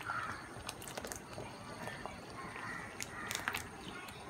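Thick butter chicken gravy simmering in a kadai, with faint scattered pops and ticks as fresh cream is poured in.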